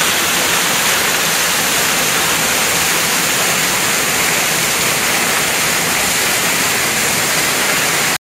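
Waterfall pouring down a rock face into a plunge pool, heard close up as a steady, loud rush of falling water.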